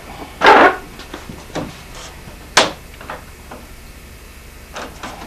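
Plywood boat frame and hull panel knocked and rubbed by hand: a loud knock about half a second in, a sharp rap a couple of seconds later, and a few lighter taps.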